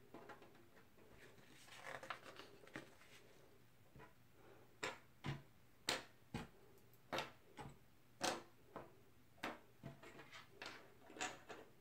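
Faint handling sounds of small plastic littleBits circuit modules being picked up and set down on a wooden tabletop. A soft rustle comes about two seconds in, then a dozen or so light clicks and taps through the second half.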